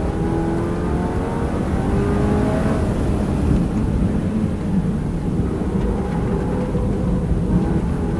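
Subaru BRZ (ZD8) 2.4-litre flat-four engine under hard track driving, heard inside the cabin over tyre and wind noise: the engine note climbs in pitch under acceleration, then falls away as the car brakes for a corner.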